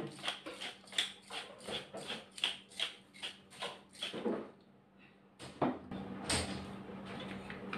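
Ground black pepper being shaken from a shaker jar over a pan: quick, even shakes about three a second for roughly four seconds. After a short pause, two separate knocks follow.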